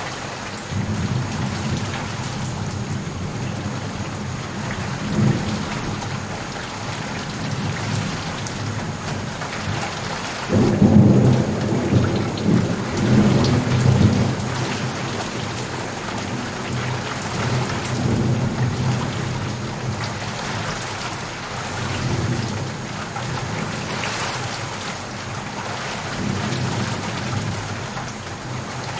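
Steady rain with rolling thunder rumbling underneath, swelling in waves and loudest near the middle.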